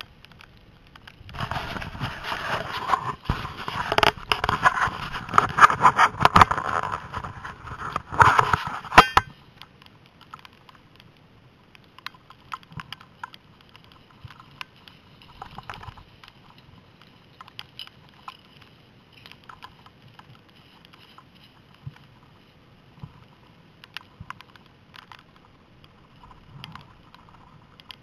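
Skis scraping and hissing over snow, heard through a helmet-mounted camera with wind on its microphone, for about the first nine seconds; it cuts off suddenly. After that only faint scattered ticks and rustles remain.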